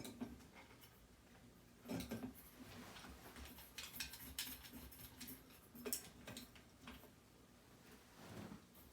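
Faint clicks, taps and scrapes of a glass light globe being handled and fitted back onto a ceiling fan's light kit, with a few louder knocks.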